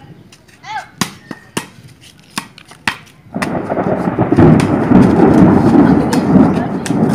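A loud thunder rumble breaks in suddenly about a third of the way in and carries on to the end. Before it come a few sharp knocks, such as a plastic football being kicked, and a child's short call.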